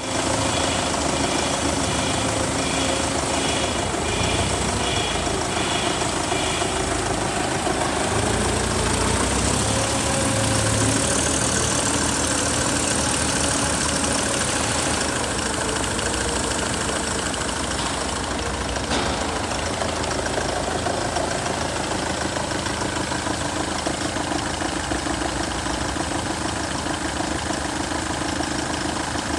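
Ford Mondeo 2.0-litre four-cylinder turbodiesel engine idling steadily with the bonnet open.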